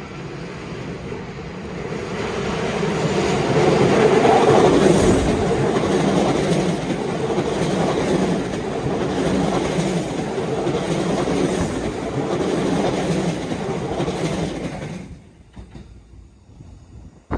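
Kintetsu 5800 series electric train running by, its wheels clacking over the rail joints. The sound swells over the first few seconds, holds steady, then cuts off sharply near the end.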